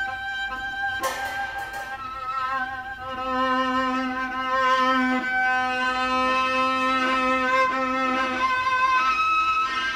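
String quartet of two violins, viola and cello playing slow, sustained bowed notes, with a low note held steady underneath from about three seconds in until near the end.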